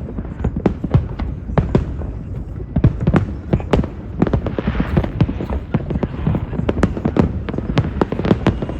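Fireworks display going off: a rapid, irregular run of sharp bangs and pops, several a second, over a low rumble.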